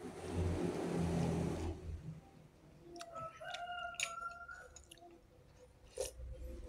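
A man slurping noodles off a fork for about two seconds, followed by light clicks of a fork and spoon against a glass bowl. A drawn-out pitched call sounds in the background a little after midway.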